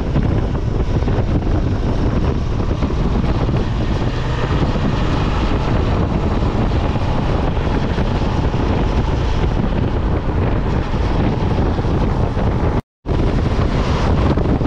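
Wind rushing over the microphone of a camera on a moving motorcycle, a dense steady rumble heaviest in the low end. The sound cuts out for a split second near the end.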